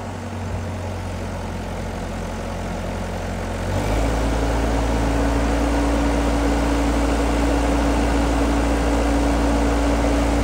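Iveco diesel engine of a tracked digger derrick running while its hydraulics move the boom. About four seconds in, the engine grows louder and a steady humming tone sets in and holds, as the hydraulics take load.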